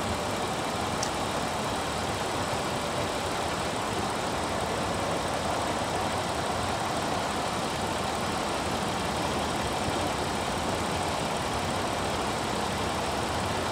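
1997 Nissan Maxima's 3.0-litre V6 engine idling steadily.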